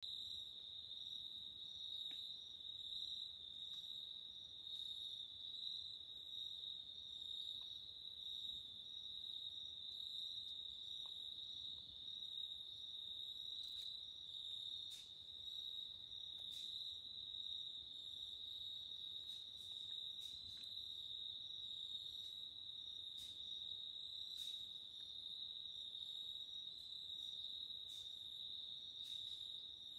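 Insects trilling steadily at one high pitch, without a break, with a few faint clicks scattered through.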